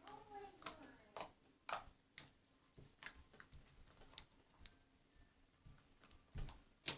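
Faint, irregular clicks and taps from small objects being handled, ending with a soft thump and a sharper click near the end.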